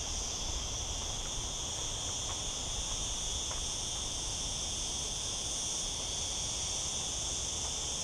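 A cricket-like insect singing: one steady, high-pitched shrill song, so loud it dominates the sound.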